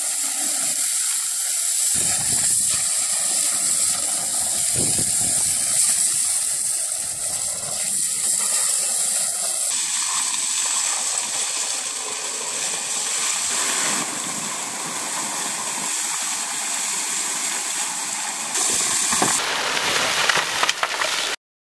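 High-pressure water jet from a hand-held hose nozzle blasting into a hard earth-and-rock cliff face: a loud, steady hissing gush of spray and splashing. It changes in tone abruptly a few times and cuts off suddenly near the end.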